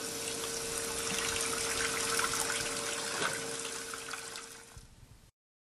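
Water running from a tap into a sink, with a faint steady hum under it; it fades and stops about five seconds in.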